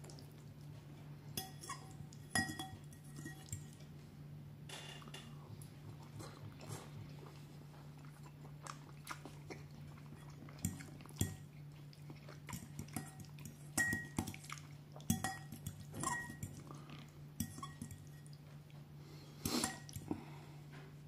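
Metal fork clinking and scraping against a ceramic bowl while twirling pasta in tomato sauce. The sharp clinks come irregularly and ring briefly.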